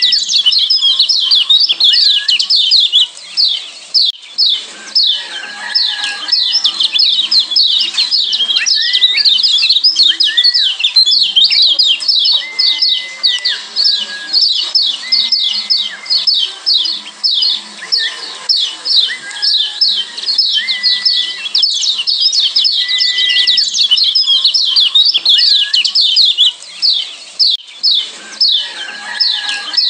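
Lombok yellow white-eyes (kecial kuning) giving their 'ciak' calls: a fast, unbroken stream of sharp, high chirps, each dropping in pitch. A few longer, level whistled notes sound lower down from time to time.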